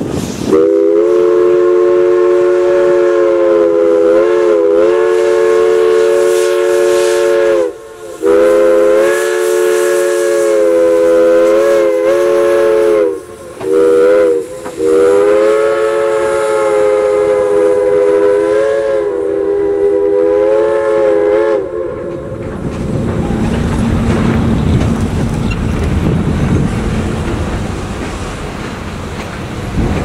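Western Maryland 1309's Pennsylvania Railroad three-chime steam whistle blown in four blasts: long, long, short, long, with a few quilled dips in pitch. After about 20 seconds the whistle stops, and the rumble of the passenger cars rolling over the steel girder bridge takes over.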